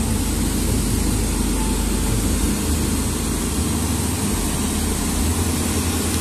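An engine running steadily, a low, even hum under a wide hiss of outdoor noise.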